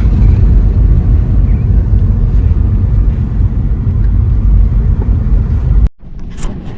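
Strong wind buffeting the microphone on an open beach: a loud, steady low rumble that cuts off abruptly about six seconds in, leaving a much quieter hiss.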